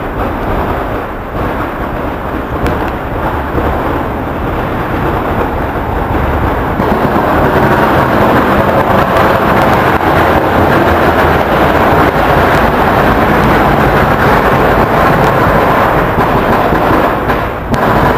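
A continuous rumbling, crackling barrage of distant fireworks and firecrackers, growing louder about seven seconds in.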